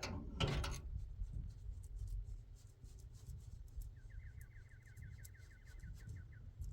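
Light scratching and rubbing strokes, as of paint being brushed onto a wall. About four seconds in comes a fast, even run of high chirps that lasts about two and a half seconds.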